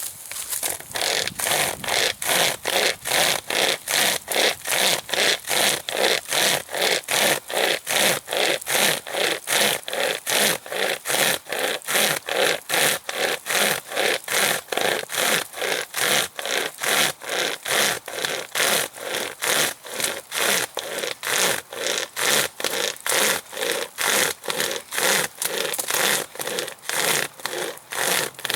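Pocket chainsaw, a bare chainsaw chain with a cord hand loop on each end, pulled back and forth in a cut. It rasps in steady, even strokes about two a second.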